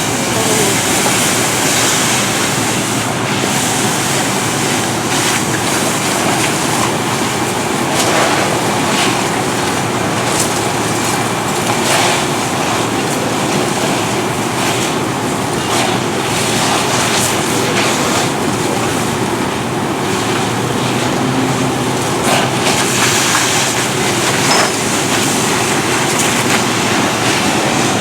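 A fire engine's pump running, with a hose stream spraying water: a loud, steady rushing noise.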